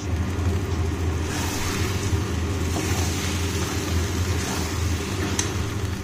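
Steady low mechanical hum with a hiss over it, in a kitchen during stir-frying, with one light metallic tick about five seconds in.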